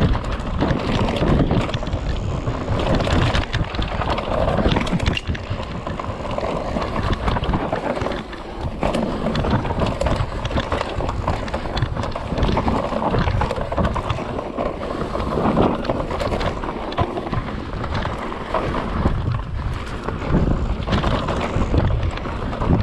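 Mountain bike riding fast down a dirt forest trail, with wind rushing over the microphone, tyres crunching on the dirt and the bike rattling and knocking over bumps.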